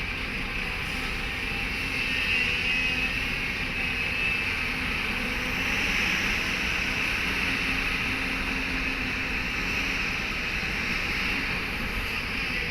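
Excavator's diesel engine running steadily, with a high whine over the low rumble that swells slightly a couple of times.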